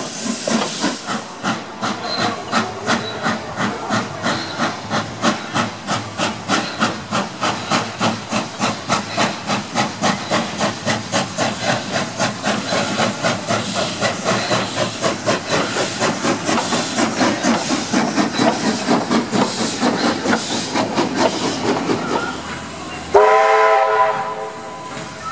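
NSW C32 class steam locomotive 3237 working under steam, its exhaust chuffing in a fast, even beat. Near the end the sound cuts to Garratt locomotive 6029 sounding its steam whistle: a loud chord lasting about a second.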